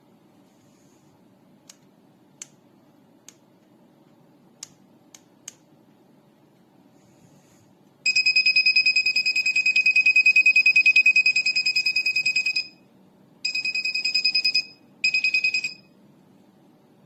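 Electronic beeper of a KAIWEETS multimeter and cable-tester kit sounding a high, rapidly pulsing beep for about four and a half seconds, then two shorter bursts of the same beep. A few faint clicks come before it.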